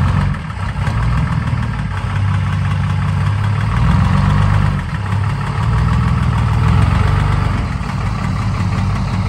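GMC DH478 Toroflow V6 diesel idling steadily with a deep, even rumble, swelling slightly a few seconds in.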